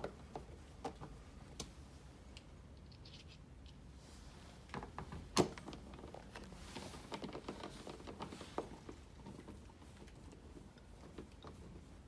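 Faint, scattered clicks and small scrapes of a hand screwdriver driving the last screws, including the bottom security screw, into a Tesla Wall Connector's plastic housing, with one sharper click about five seconds in.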